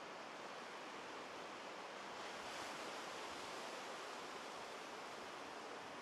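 Small ocean waves breaking and washing up a sandy beach: a steady surf hiss that grows a little louder about two seconds in, then eases.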